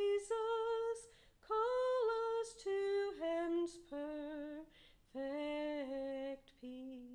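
A solo voice humming a slow melody unaccompanied, in long held notes that step mostly downward, with short breaths between phrases. The last note is held near the end.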